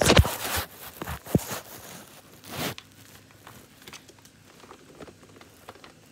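Handling noise: fabric and fingers rubbing and bumping the phone's microphone as the phone is moved about. There is a loud rustle with a few knocks in the first second and a half, another rustle near the three-second mark, then only faint clicks.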